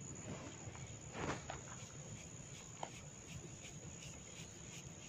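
Faint rustling of hair being gripped and tugged in a hair-cracking massage, with one louder rustle about a second in, over a steady high-pitched whine.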